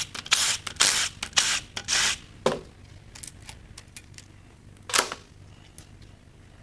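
Cordless impact driver spinning out the rocker arm bolts on a GM 5.3L V8 cylinder head in about five short bursts over the first two seconds. Two sharp metal clanks follow, about half a second and three seconds later, as loose rocker arms are handled.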